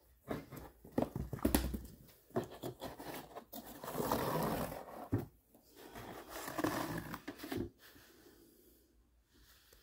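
Kittens' claws scratching and scrabbling on corrugated cardboard scratcher pads: a run of quick scrapes and clicks, then bouts of rustling that die away about three-quarters of the way through.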